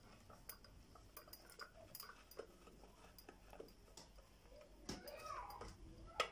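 Faint, scattered clicks and taps of a screwdriver and hands working on a ceiling fan's plastic motor housing to undo its screws, with one sharper click about five seconds in.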